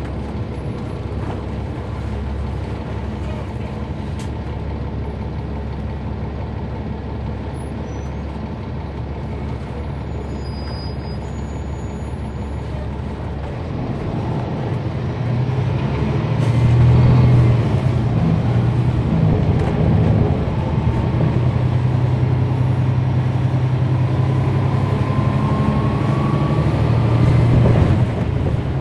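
Bus diesel engine, a Cummins ISL9 inline-six in a NABI 40-SFW transit bus, heard aboard: a steady low rumble that grows louder from about halfway through as the bus pulls harder, with little whine from its ZF Ecolife automatic transmission.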